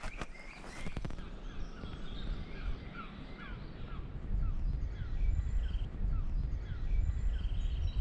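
Small woodland birds singing: a run of short falling whistled notes, about two a second, with a few higher calls over them. A low rumble grows louder from about halfway.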